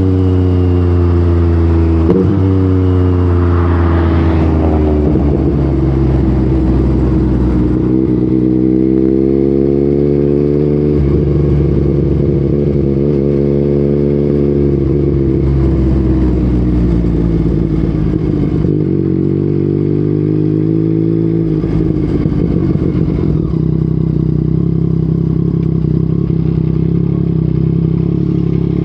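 Yamaha MT-09's three-cylinder engine through an Akrapovic exhaust while riding: it slows with two quick revs in the first few seconds like downshifts, then pulls up through the gears with sudden pitch drops at shifts about eleven and twenty-one seconds in, and settles into steady cruising near the end.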